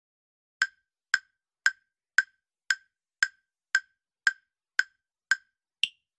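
Countdown timer sound effect: eleven evenly spaced ticks, about two a second, the last one higher in pitch.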